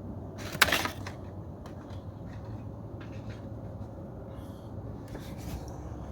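A steady low rumbling drone, like a rushing wind. A loud rustle of handling on the phone's microphone comes about half a second in, and a few fainter clicks follow.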